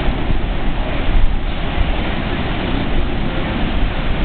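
Heavy surf from the hurricane swell breaking on the beach, a steady rush of waves with wind buffeting the microphone.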